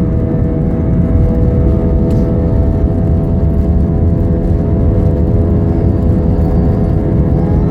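Airbus A320's jet engines running steadily: a loud, even rumble with several steady whining tones over it.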